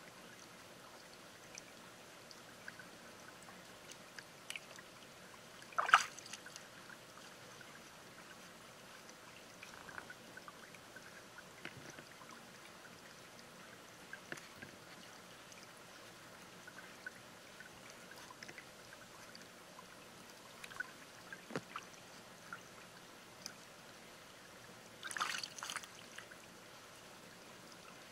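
Shallow stream trickling over rocks, with scattered faint clicks and small splashes. There is one sharp click about six seconds in and a short splashy burst near the end.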